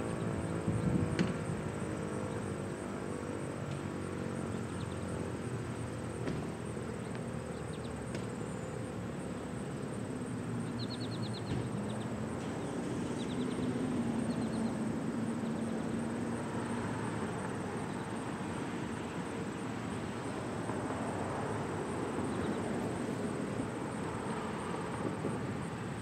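American Signal T-128 tornado siren winding down at the end of its test, its falling tone fading out within the first couple of seconds; the siren rotates on wind-down. After that, a steady outdoor background with a constant high whine and a few short chirps.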